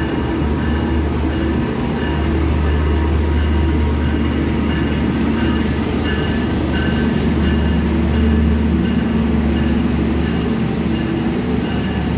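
Bogowonto passenger train running, a steady low rumble with faint repeating tones above it.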